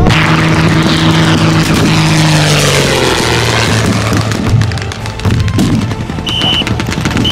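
Propeller aircraft passing low overhead, its engine drone falling in pitch as it goes by over the first few seconds, then settling to a steady low drone. A short high whistle near the end.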